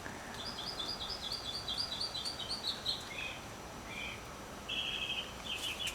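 A songbird singing: a quick run of short high chirps, about six a second, that slowly falls in pitch over about three seconds, followed by a few shorter groups of chirps.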